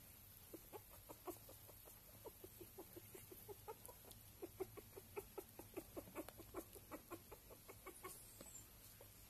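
Faint, rapid string of soft little grunts from a Russian Bolonka puppy about 18 days old, about three a second, loudest around the middle.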